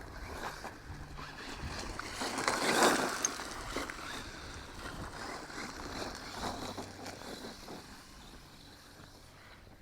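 JLB Racing Cheetah RC truck driving over dirt, its electric drive and tyres making a rushing noise. The noise swells as it comes closest about three seconds in, then fades as it moves away.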